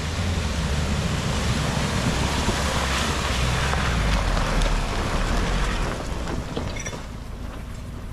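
A four-wheel drive vehicle driving off-road: a low engine rumble under a broad rushing noise, which eases off after about six seconds.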